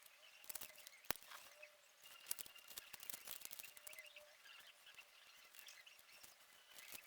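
Faint handling noises: scattered light taps and rustles, with one sharp click about a second in.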